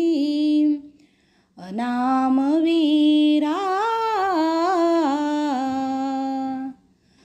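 A woman's voice singing a drawn-out wordless melodic phrase without accompaniment: one held note fades out just under a second in, and after a short pause a longer phrase of about five seconds rises and falls in pitch before stopping.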